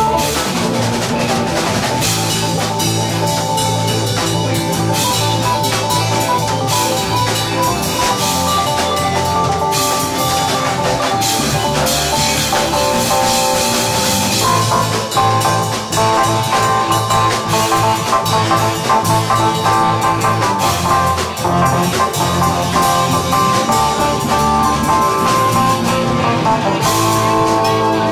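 Experimental instrumental jam music with a drum kit keeping a steady beat under guitar and sustained chords.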